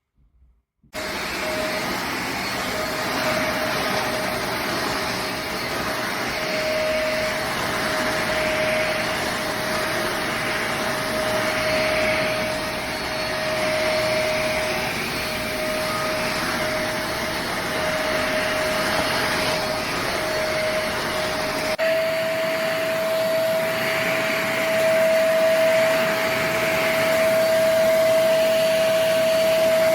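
Corded stick vacuum cleaner (elezon F800, 500 W) running steadily with a constant motor whine; it comes on abruptly about a second in, and about two-thirds of the way through its whine steps slightly higher and the low rumble drops away.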